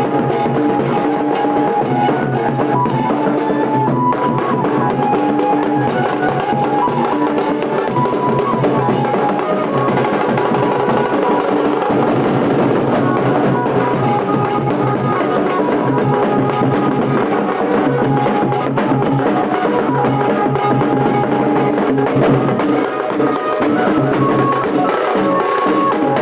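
Nashik dhol band playing: dense, driving dhol drumming with a stepped melody line carried over the top.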